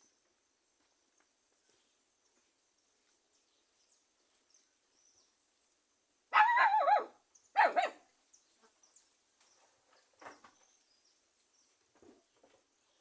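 Two loud, wavering animal cries about a second apart, about halfway through; otherwise only faint scattered taps and rustles.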